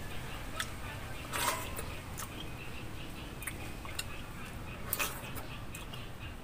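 Wet smacking and slurping mouth sounds of a man eating slices of mango by hand: scattered soft clicks, with louder ones about a second and a half in and again about five seconds in.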